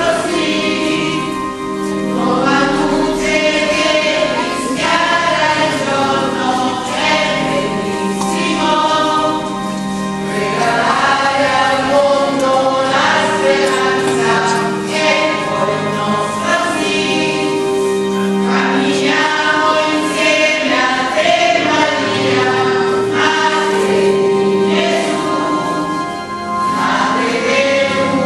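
Church choir singing a hymn, with several long held notes.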